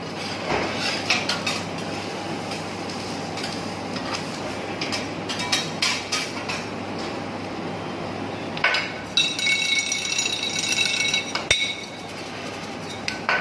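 Metal spatulas clanking and tapping on a teppanyaki griddle over a steady sizzle, with a quick run of ringing metal-on-metal strikes about two-thirds of the way in.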